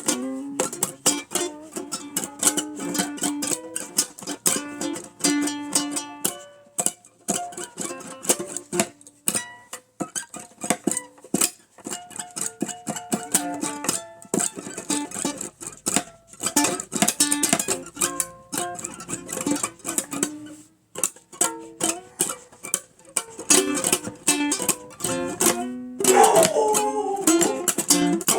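Ukulele and another plucked string instrument playing a tune together, with quickly picked notes throughout. The playing grows louder and fuller about two seconds before the end.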